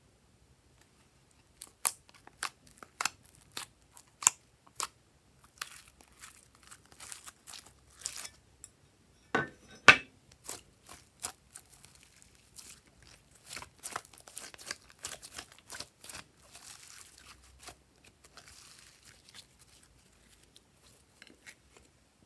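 Glossy gold glitter slime being squeezed and stretched by hand, making sticky clicks and pops. It starts with single sharp clicks about twice a second, then turns to denser crackling, with the loudest pops about ten seconds in, and softer squishing after that.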